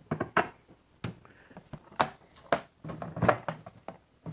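Hard plastic knocks and clacks as a cut Milwaukee Packout crate and a loose plastic piece are handled and pushed into place, about half a dozen irregular strikes with short quiet gaps between them.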